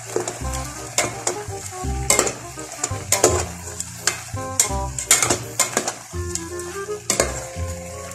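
A metal spoon stirring shrimp and vegetables in a metal pot, clinking and scraping against the pot in quick irregular strokes while the food sizzles. Background music plays underneath.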